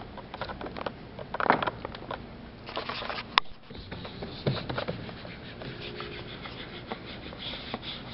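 Close-up scratching, rubbing and rustling as paint-gloved hands work paint across a canvas and handle the canvas and the paper-covered table, with irregular small knocks and one sharp click about three and a half seconds in.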